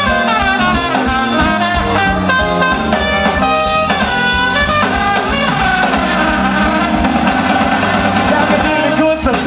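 Live band playing an instrumental break with no vocals: a horn section of trumpet and saxophone playing melodic lines over drums and bass.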